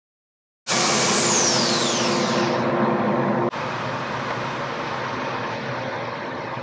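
Stationary edge belt sander running with a steady whir that starts abruptly about half a second in. A high whistle falls in pitch over the first two seconds, and the noise steps down in loudness about three and a half seconds in.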